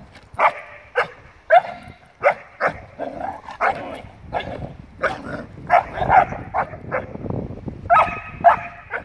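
Young dog yapping: a quick run of short, high-pitched barks, about two a second.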